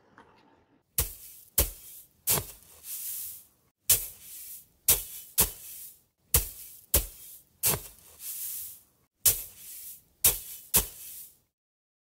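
Intro music made of about a dozen heavy percussion hits in an uneven rhythm. Each hit rings out, and hissing swells rise between some of them. It cuts off about half a second before the end.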